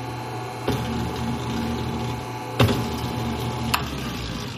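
1930s Hobart commercial stand mixer running with its wire whip turning in the bowl: a steady motor and gear hum. Three sharp mechanical clunks come as the lever on the side of its head is worked, the loudest a little before three seconds in.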